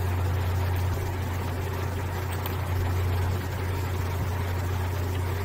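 Steady low hum with an even background hiss.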